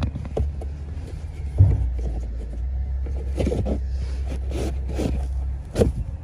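Cabin air filter being handled in its plastic housing behind the glovebox: several short plastic knocks and scrapes with the filter rustling, over a low steady hum.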